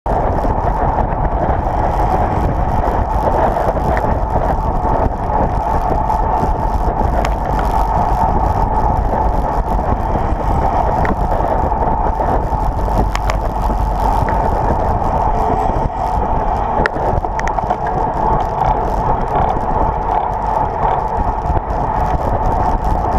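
Steady wind and road rush on a bike-mounted action camera's microphone while riding at speed, with a few sharp ticks.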